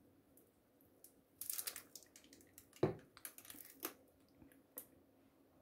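Quiet kitchen handling sounds: lime juice squirted from a plastic squeeze bottle in a short hissing spray, then a sharp knock about halfway through and a few light clicks and scrapes.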